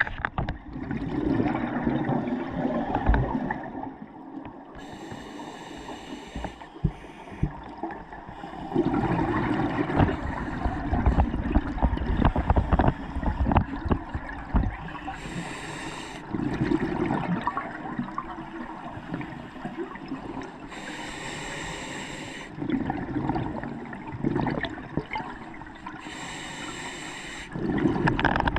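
Scuba diver breathing through a regulator underwater: short hissing inhalations alternating with long rumbling bursts of exhaled bubbles, about four breaths.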